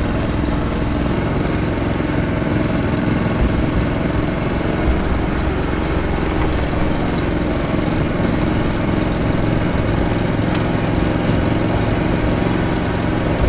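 All-terrain vehicle engine running steadily as it drives along.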